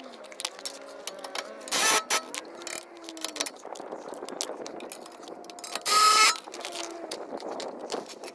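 Impact driver tightening the rear suspension bolts in two short bursts of hammering, about two seconds and six seconds in, with small clicks of tool handling between.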